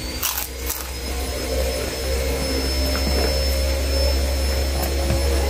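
A steady mechanical drone with a strong low hum, like a motor running, growing a little louder about two seconds in; a couple of brief clicks in the first second.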